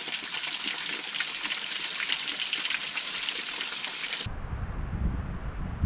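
Rushing water hissing steadily, cut off sharply about four seconds in and replaced by a low wind rumble on the microphone.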